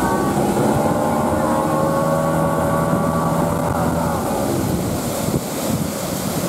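Tow boat's outboard motor running at speed, with wind buffeting the microphone and the wake rushing; the engine note fades about two-thirds of the way through.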